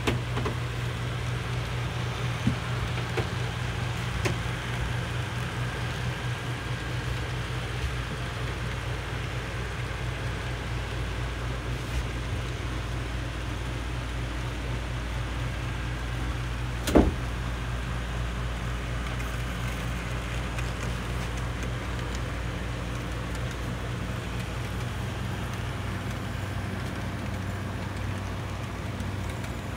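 Model train of Seaboard diesel locomotives hauling freight cars along the layout: a steady low hum and rumble, with one sharp click about 17 seconds in.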